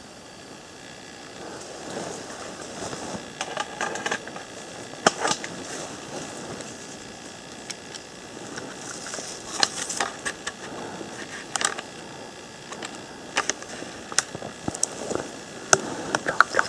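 Scattered sharp clicks and crackles over a steady hiss: leaves and twigs crackling and snapping as someone moves through dense undergrowth.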